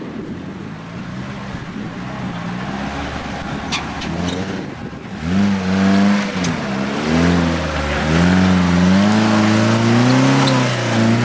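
Off-road vehicle's engine revving hard under load. It gets much louder about five seconds in, and its pitch then rises and falls repeatedly.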